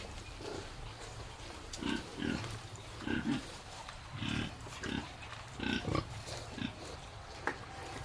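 Pigs grunting, a series of about nine short grunts spaced irregularly.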